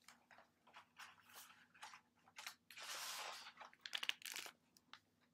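Faint paper rustling as a hardcover picture book is handled and its page turned: small crinkles and clicks, one longer swish of about a second in the middle, and a few quick clicks after it.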